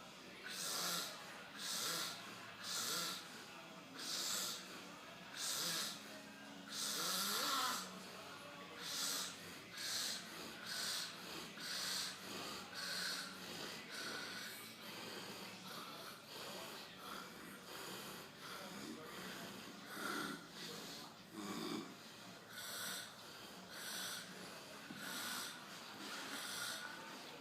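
A man snoring loudly, each noisy, rasping breath swelling and fading about once a second.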